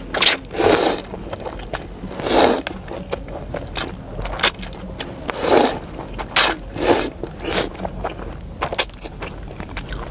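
A person slurping and chewing chewy yellow noodles coated in a thick, sticky chili sauce. There is a run of short, wet slurps at irregular intervals, with quieter chewing between them.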